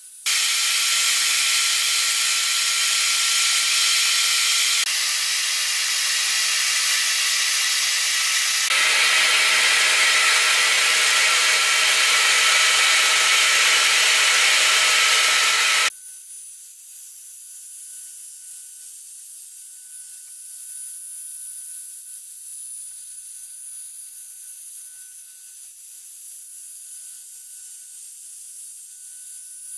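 Router spindle on a CNC machine, set to about 10,000 rpm, running and cutting plywood: a loud, steady, high-pitched noise that changes level abruptly a couple of times. About sixteen seconds in it drops suddenly to a much quieter steady hiss with a faint steady whine.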